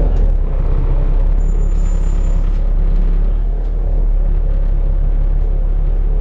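Volvo B7TL double-decker bus's diesel engine running with a steady low drone.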